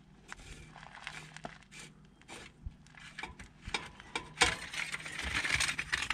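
Scattered clicks, knocks and scrapes of hands working under a car, refitting an exhaust part that knocked loose when the car bottomed out; a louder stretch of scraping and rustling from about four and a half seconds in.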